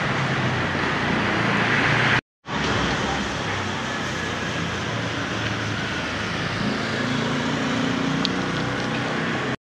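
Steady road traffic noise with a low engine hum. It cuts out completely for a moment about two seconds in.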